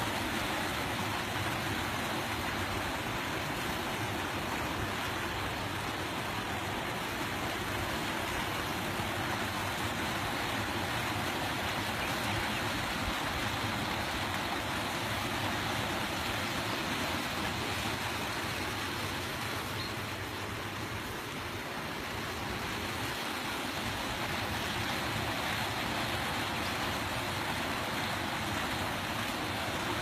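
Wastewater gushing from a concrete outfall into a river: a steady rushing of churning water.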